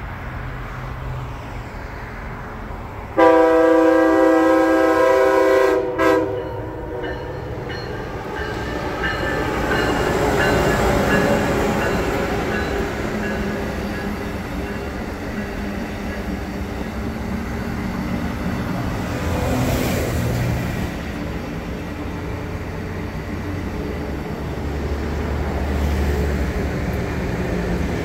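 A train's horn sounds one steady blast of about three seconds, the loudest sound here, then a train passes with a long rumble of wheels on the rails that swells and fades.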